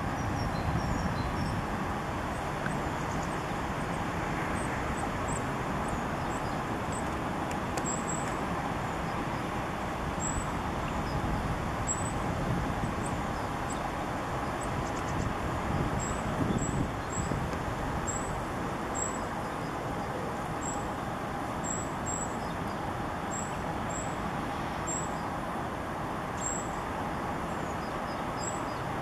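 Steady hum of road traffic. Short, very high, thin notes repeat irregularly over it through the second two-thirds.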